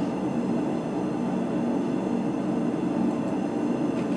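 A blacksmith's forge running with a steady, even roar, as its fire is kept up for reheating the iron, with a couple of faint clicks near the end.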